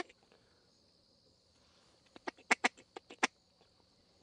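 Duck quacking: a quick run of about six quacks starting about two seconds in.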